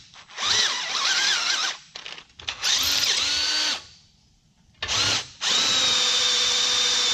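Cordless drill boring out a hatch hinge hole to its final size in a few short trigger pulls, its motor whine dipping and wavering as the bit bites. It then settles into a steady run for the last second and a half. The owner says the drill's battery is dying.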